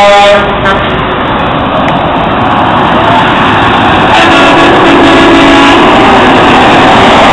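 Heavy trucks driving past, with steady engine and road noise. A truck horn sounding at the very start cuts off after a moment.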